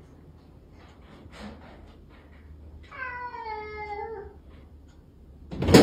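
Domestic cat giving one long meow that drops in pitch at its end, followed near the end by a loud, sudden thump.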